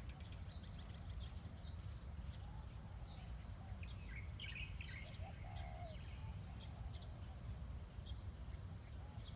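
Small birds chirping, many short high chirps scattered through, with a few lower warbling calls, over a steady low rumble of outdoor background noise.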